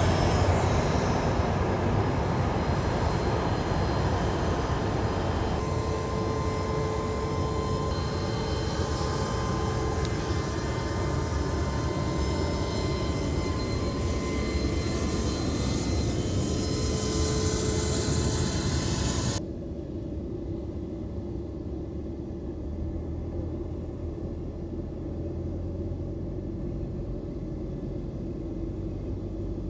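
A Bombardier Challenger 300 business jet's turbofan engines running steadily close by, a broad rushing noise with faint steady whine tones. About two-thirds of the way through, the high part of the sound cuts off suddenly, leaving a low rumble.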